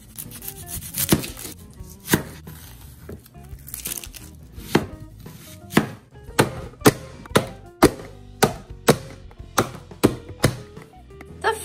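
An onion being chopped with a kitchen knife on a plastic cutting board: sharp chopping knocks, a few scattered cuts at first and then a steady run of about two a second.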